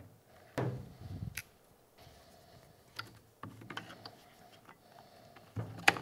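Scattered light clicks and handling noise from a Tesla Model S door handle assembly being worked by hand, as its metal bar and springs are eased out of the plastic housing.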